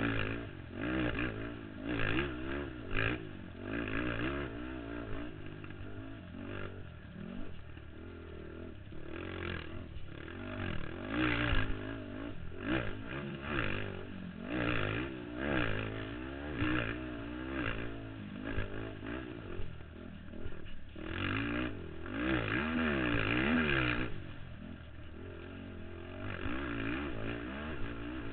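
Racing ATV (quad) engine heard up close from a camera mounted on the machine, revving up and down over and over as the rider accelerates, shifts and backs off around a dirt motocross track. It is loudest in long pulls about eleven seconds in and again from about twenty-one to twenty-four seconds.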